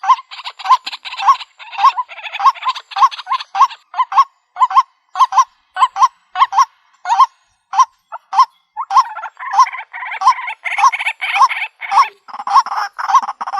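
White-breasted waterhen calling: a harsh, croaking note repeated about two to three times a second. The calling becomes denser and harsher about two-thirds of the way through.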